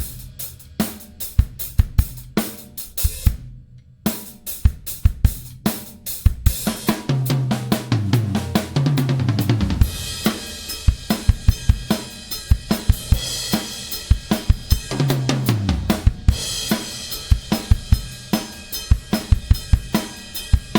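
TMS custom drum kit with Keller shells being played: a groove of bass drum, snare and hi-hat, with a brief stop about four seconds in. Around eight seconds in, a fill runs down the toms from high to low, followed by cymbal-heavy playing and another tom fill near sixteen seconds.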